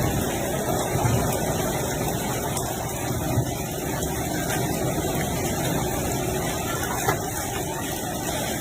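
Storm of strong wind and heavy rain with hail, a steady loud roar with a few sharp knocks scattered through it.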